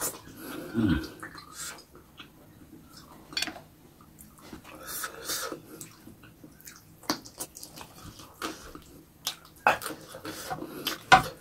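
Close-miked wet mouth sounds of eating by hand: chewing, lip-smacking and fingers squishing in rice, as a series of short wet clicks and smacks. A brief low falling hum comes from the eater about a second in.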